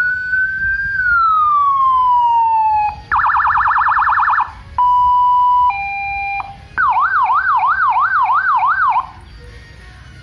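Electronic siren sounding through a Landun YHD 100W horn speaker as it cycles through its tones. First a long wail falling in pitch, then a fast yelp warble, then a steady two-tone hi-lo, then a slower up-and-down sweep that cuts off about nine seconds in.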